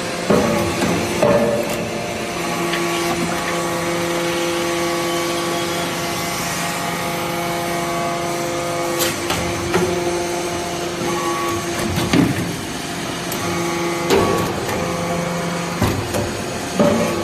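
Hydraulic briquetting press for magnesium dust running: a steady pump hum, with sharp knocks every few seconds as the press changes stroke.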